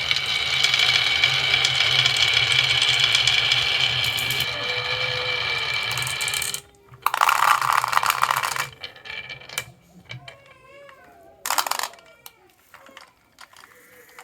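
Small wooden toy vehicles rolling down a wooden slope track: a steady rattling whir for about six seconds that stops suddenly, followed by two short, loud clattering runs.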